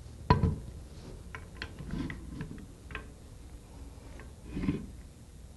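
Metal clicks and knocks as the rotor and shaft assembly of a sliding-vane pump, blades and drive pins fitted, is set down inside the cam in the pump casing. The loudest knock comes about a third of a second in, followed by lighter ticks and a short dull rubbing sound near the end.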